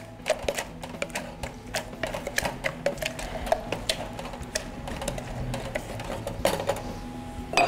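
A wooden muddler pounding and grinding watermelon and basil leaves in a stainless steel mixing tin: quick, irregular knocks, several a second, crushing the fruit to release its juice. A louder knock comes at the very end.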